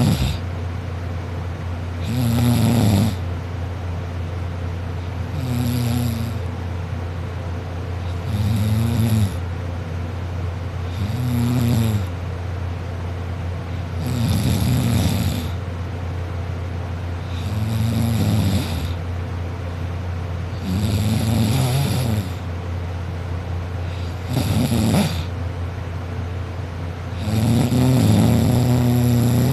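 A sleeping person snoring loudly, about every three seconds: some ten snores of roughly a second each, over a steady low hum.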